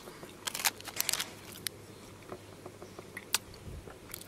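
Eating an Oreo chocolate bar: a run of short, sharp crackles and clicks in the first second and a half, then a few sparser ones, with a last sharp one about three seconds in.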